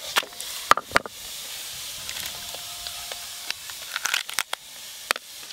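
Crab shells being cracked: two sharp knocks about a second in as a stone pestle strikes a crab on a stone grinding slab, then a cluster of snapping clicks near the end as the shell is prised apart by hand. Under it runs a steady hiss of prawns frying in mustard oil.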